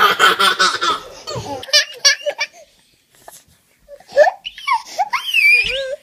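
A baby laughing hard in quick bursts, then high giggling squeals. After a short lull, another baby gives loud, high, wavering squeals.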